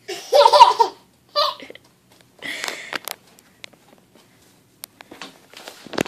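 A small child's short high-pitched vocal sounds, a squeal followed by two briefer giggly bursts, then a few sharp knocks and taps.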